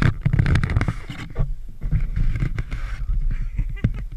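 Wind buffeting a GoPro camera's microphone in gusts, with scattered knocks and scrapes as the model plane it is mounted on is handled.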